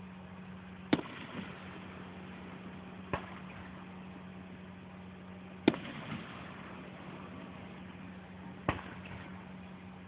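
Aerial firework shells bursting at a distance: four sharp bangs, about a second, three, five and a half and eight and a half seconds in, the first and third each followed by a fainter second bang. A steady low hum runs underneath.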